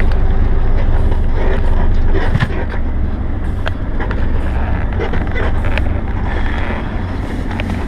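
Cab interior of a MAZ timber-truck tractor on the move: a steady low engine and road drone, with scattered short rattles and knocks from the cab.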